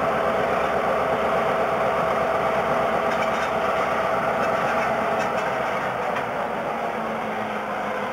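Diesel locomotive engine running steadily at low throttle as it slowly pulls a cut of tank cars away, growing a little quieter near the end.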